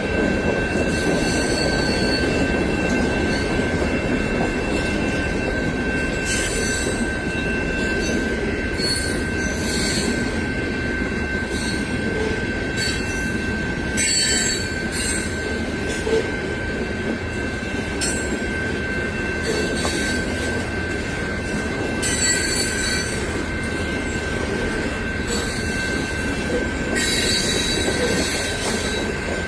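Long freight train rolling past, its cars rumbling steadily over the rails with a continuous high wheel squeal.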